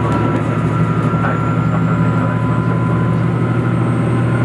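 Cabin sound of a diesel tilting limited express train running at speed: a steady low engine hum from under the floor mixed with wheel-on-rail noise, with two steady whining tones over it.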